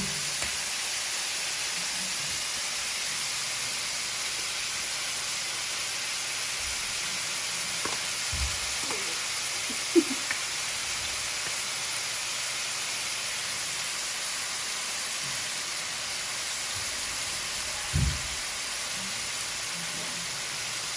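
Ground beef and sautéed onions sizzling steadily in a frying pan as the meat browns, with a few knocks from something striking the pan along the way.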